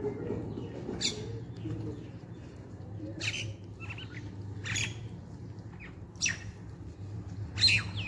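Common mynas giving five short, harsh calls, spaced roughly a second and a half apart, the last one the loudest, over a low steady background hum.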